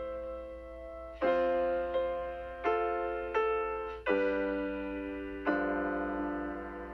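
Slow, gentle solo piano background music: chords struck about once a second, each ringing and fading away.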